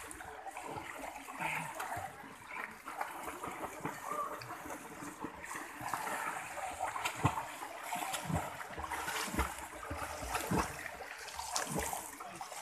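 A swimmer's arm strokes and kicks splashing in a swimming pool: irregular splashes over a steady wash of moving water, coming more often in the second half.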